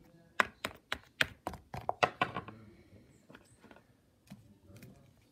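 A plastic toy animal figure being handled and tapped against a hardcover book: a quick run of sharp clicks over the first two and a half seconds, then a few faint taps.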